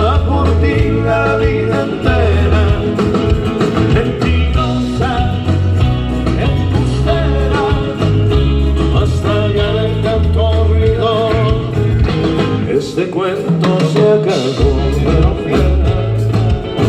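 Live rock band playing an instrumental passage: a wavering melodic lead line over bass and drums. The bass drops out for a moment about thirteen seconds in.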